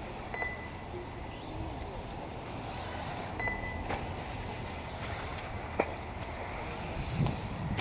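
Outdoor ambience at an RC buggy track: a steady rush of open-air noise, with two short high electronic beeps about three seconds apart and a few sharp clicks.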